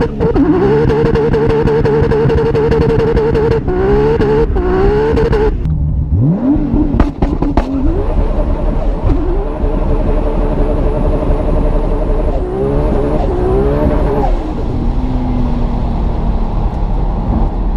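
Tuned car engine accelerating hard at full throttle, its note climbing and holding high, then stepping through several quick upshifts, with sharp exhaust pops and cracks at the shifts. A second run starts about six seconds in, heard from inside the cabin, with more upshifts near the end.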